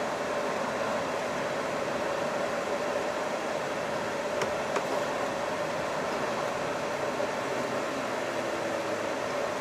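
Steady running noise inside the cab of a Hino Profia truck: an even hum and hiss with a constant tone, broken by two faint clicks a little under halfway through.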